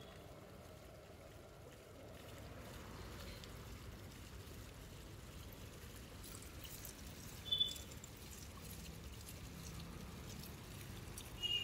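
Faint, steady running and splashing water. A short high chirp comes about seven and a half seconds in.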